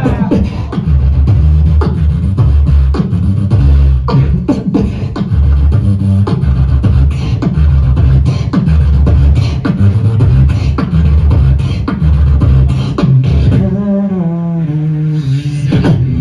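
Live beatboxing through a club PA: heavy bass with kick and snare sounds in a steady, dense rhythm. Near the end there is a short pitched vocal line that steps down.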